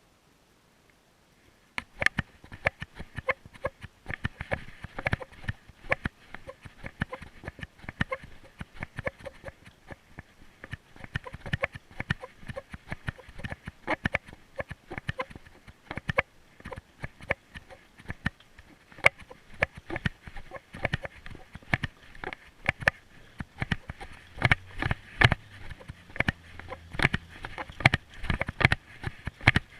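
Rapid, irregular popping clicks, starting about two seconds in and coming thicker and louder near the end.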